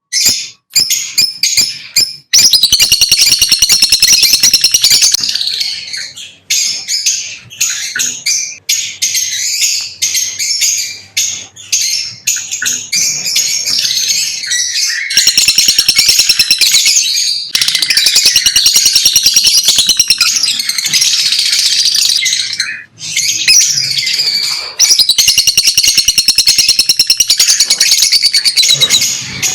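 Lovebirds chirping and chattering continuously in rapid, high-pitched calls. The chatter comes in several louder, dense stretches of fast trilling.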